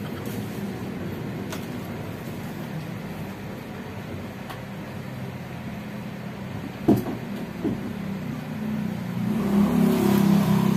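A motor vehicle's engine running steadily, growing louder near the end, with a sharp knock about seven seconds in.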